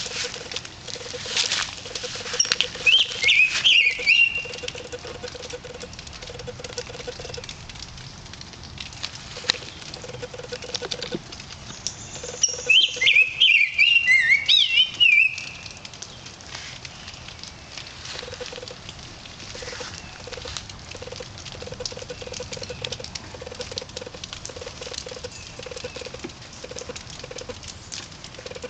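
Steady pattering of water dripping in the sunshine just after a hailstorm, made of many small scattered drips. A songbird sings a loud warbled phrase about three seconds in and another, longer one around thirteen seconds in.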